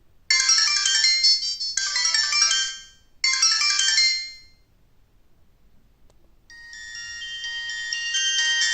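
Ringtones of an Alcatel OT-1016D mobile phone playing: a short melodic phrase repeated three times, then after about two seconds of quiet a different, busier ringtone starts softly and grows steadily louder.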